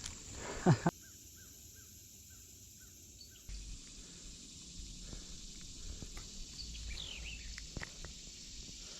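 Outdoor ambience with birds calling: a run of small repeated chirps, then a few falling calls later on. Two loud, short sounds just before the one-second mark stand out above the rest.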